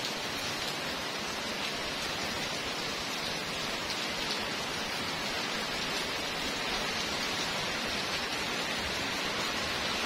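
Heavy rain pouring down on a paved street, a steady, even hiss with no let-up.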